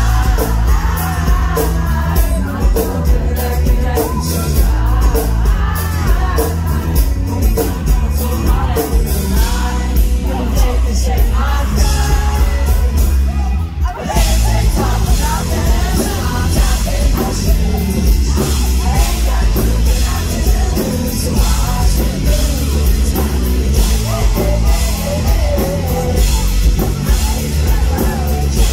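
Live pop-rock band playing: lead vocals over acoustic and electric guitars, bass and drums, recorded from the crowd. About halfway through, after a brief drop, the full band comes in harder, with the drums and cymbals much louder.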